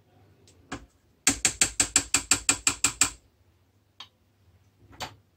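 A quick, very even run of about a dozen sharp clicks, some seven a second, lasting about two seconds, with a few single clicks before and after.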